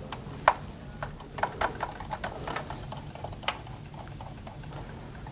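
Irregular light clicks and ticks of small metal thumb screws being turned by hand, fastening a Corsair H105 AIO cooler's pump block onto its CPU mounting bracket.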